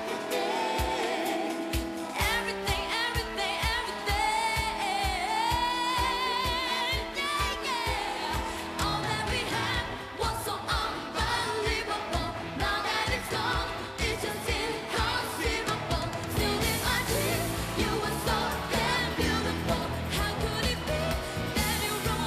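A pop song performed live: a woman singing a melody with vibrato over a band backing with a steady beat. The bass fills out about nine seconds in.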